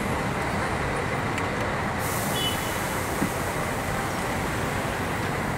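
Steady city street traffic noise, with a brief faint high tone about two seconds in.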